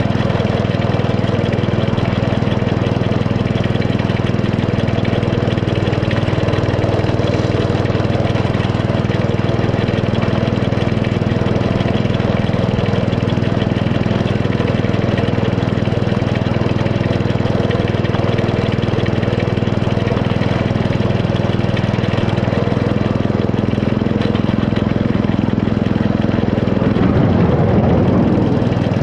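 Small petrol engine of a 7¼-inch gauge miniature railway locomotive running steadily as the train travels, growing briefly louder near the end.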